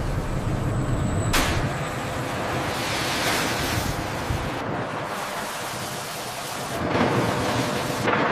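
Rushing sound-effect whooshes over a low rumble. The noise surges suddenly about a second in, again around the middle and near the end, and the rumble drops away about halfway through.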